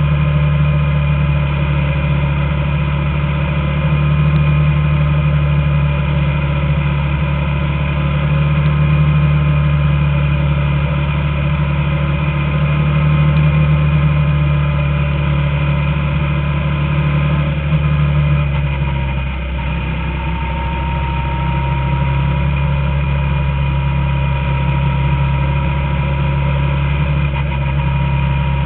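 Small open-wheel oval race car's engine running at a steady speed, heard from on board at lap pace. It dips briefly in pitch and level about two-thirds of the way through before settling back.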